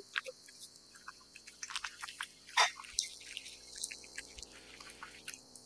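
Cat eating wet food from a stainless steel bowl: an irregular string of wet chewing and licking clicks and smacks, the loudest about two and a half seconds in.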